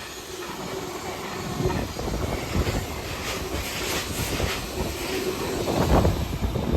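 Freight train hauled by a Class 70 diesel locomotive passing at speed, its wagons rumbling and clattering over the rails.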